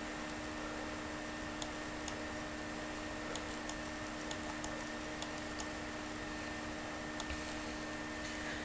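Computer mouse button clicking while dragging to orbit the view: about nine sharp clicks, mostly in press-and-release pairs, over a steady low hum from the computer.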